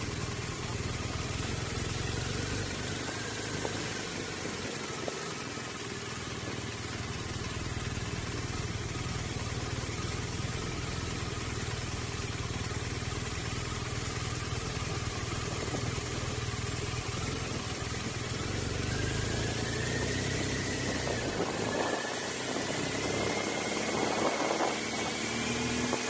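BMW GS adventure motorcycle engine running at low speed with a steady low rumble, then rising in pitch near the end as the bike accelerates away.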